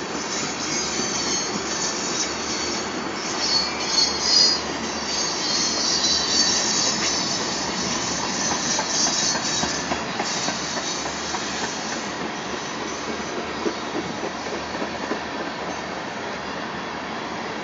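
Freight train of tank cars rolling past at close range: a steady rumble of the wheels on the rails, with high-pitched wheel squeal that is loudest about four seconds in and dies away after about twelve seconds.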